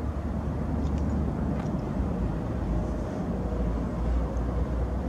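Steady low outdoor rumble of wind buffeting the microphone, with distant city traffic.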